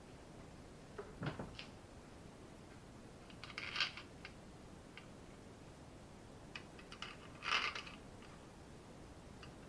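Faint handling of metal engine parts: a few small clicks and short scraping rustles. The two clearest come about four and seven and a half seconds in, as the timing cover is fitted to the Skoda 105 engine block.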